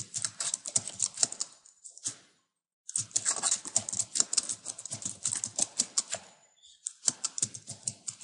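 Computer keyboard typing: rapid keystrokes in three runs, broken by short pauses about two seconds in and again about six seconds in.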